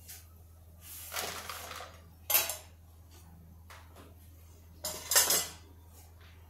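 Stainless-steel dishes and a knife clattering as they are handled and set down. There is a brief scrape about a second in, a sharp clink just after two seconds, and another clatter around five seconds.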